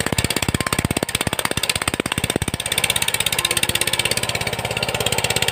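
VST Shakti power tiller's single-cylinder diesel engine running steadily under load in a muddy paddy, a fast even beat of exhaust pulses. A little past halfway the sharp beats blur into a steadier drone.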